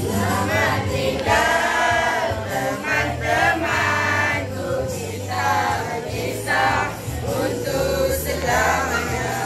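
A group of schoolboys singing a song together from lyric sheets, over recorded backing music with a steady bass line.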